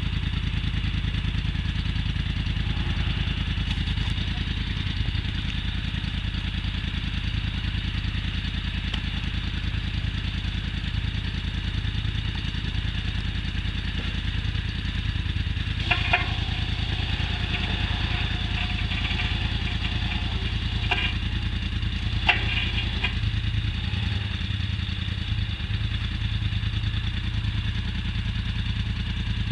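Quad bike (ATV) engine idling steadily, with a few brief sharp sounds a little past halfway.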